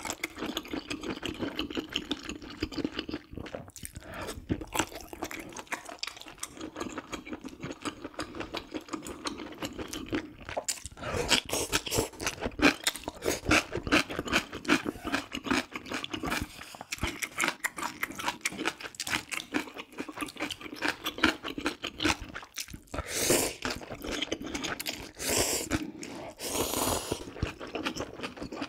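Close-miked eating of spicy squid jjamppong ramyeon noodles: rapid, wet chewing and crunching. A couple of longer slurps come near the end.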